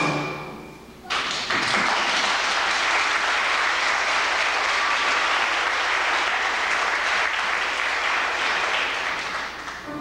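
Audience applauding. The last note of a sung number dies away, then about a second in the clapping starts all at once and carries on steadily until music starts again near the end.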